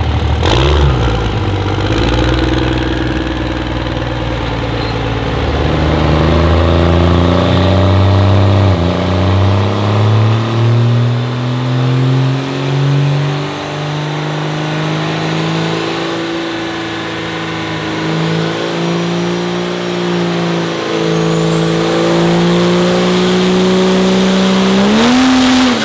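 Dodge Ram Cummins turbo diesel under full load on a chassis dyno. Its pitch dips once about nine seconds in, then climbs steadily for well over ten seconds. A turbo whistle rises over it near the end, before a sharp last rev and lift-off.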